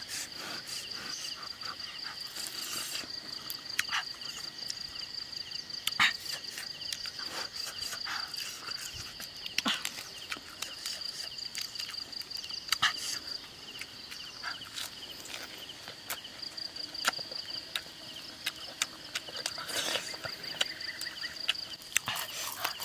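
Insects trilling steadily in a high, fast-pulsing drone, with scattered sharp clicks over it.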